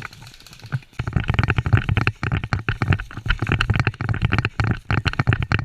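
Dense, irregular knocking and rustling close to the microphone, starting about a second in and going on without a break.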